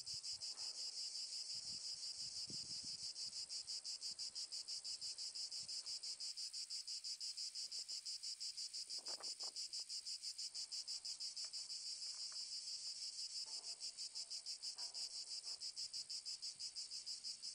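Insects chirring steadily in a fast, even, high-pitched pulse, with a few faint knocks now and then.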